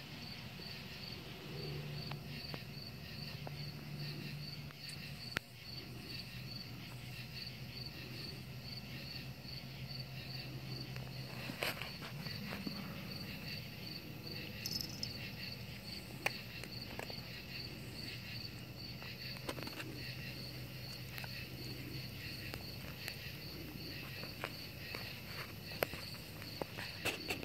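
Insects chirping in an even, pulsing rhythm, a few chirps a second, with a low steady hum underneath and a few soft knocks.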